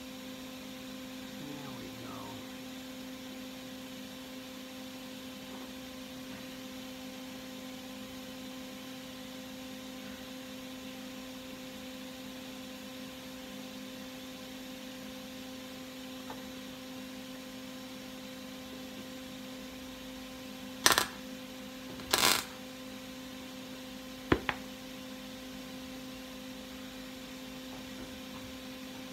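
Steady electrical hum. About three-quarters of the way through come two short, loud scraping noises a little over a second apart, then a single sharp click, as a curved sheet-metal repair strip is shifted against a car's quarter-panel wheel-arch lip.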